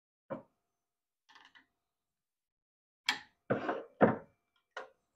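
A few sharp metal knocks and clinks, the loudest close together about three to four seconds in: wrenches working the collet nut of a CNC router spindle while a 60-degree V-bit is changed.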